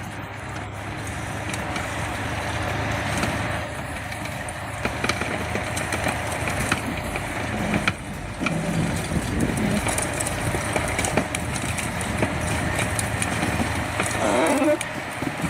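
Heavy machine's engine running steadily with a low hum.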